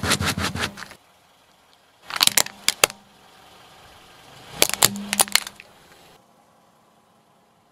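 A car tyre crushing a leafy green vegetable, a quick crackling crunch in the first second. Then a plastic toy remote control cracks and snaps under the tyre in two bursts of sharp cracks, about two and five seconds in.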